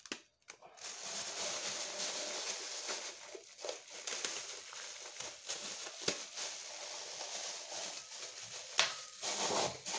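Thin cellophane bag crinkling and rustling as hands pull it down over the mouth of a glass jar and stretch a rubber band around the neck, with a few sharp clicks.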